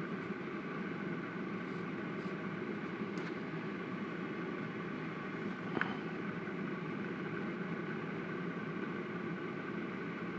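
Steady mechanical hum of a small motor or fan, even throughout, with a single light click about six seconds in.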